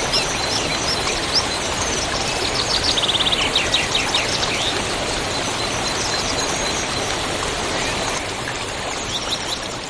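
Steady rush of a river with small birds chirping over it, including a fast trill of rapidly repeated notes about three seconds in. The sound fades down near the end.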